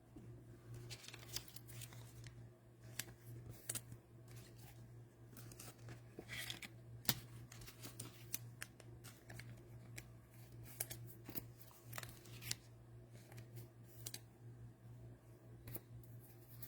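Faint, scattered clicks and light scrapes of trading cards and cello pack wrappers being handled and opened, over a steady low hum.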